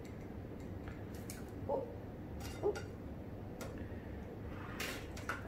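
Metal serving tongs clicking and tapping against a glass baking dish and a plate while a stuffed pepper is lifted out and served: a few light, separate taps with a faint scrape or squeak between them, the loudest near the end.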